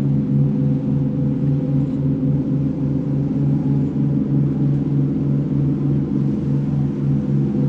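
Boat engine running steadily: a low drone with an even pulse of a few beats a second.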